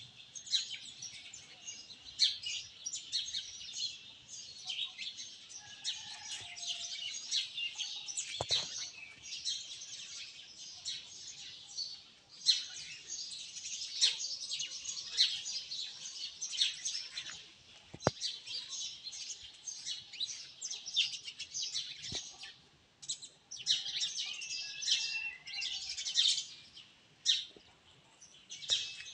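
Many small birds chirping together in a continuous, busy chorus of short high notes.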